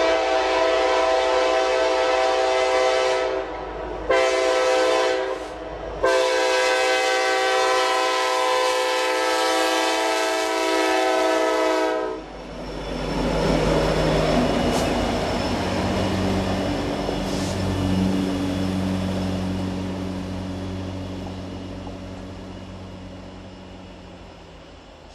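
Norfolk Southern SD70ACu diesel locomotives running light, sounding a multi-chime air horn in the closing blasts of a grade-crossing signal: a long blast, a short one, then a long one of about six seconds. After the horn stops, the locomotives' engines rumble past and fade away.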